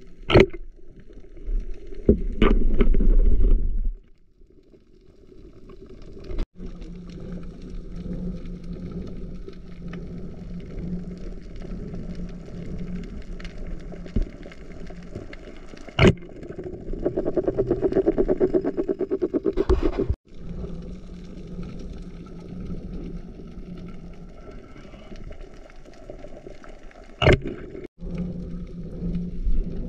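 Underwater sound picked up by a camera in a housing on a night dive: a steady low hum with sharp clicks near the start, about sixteen seconds in and near the end, a loud rumbling stretch in the first few seconds, and a buzzing, pulsing stretch in the middle.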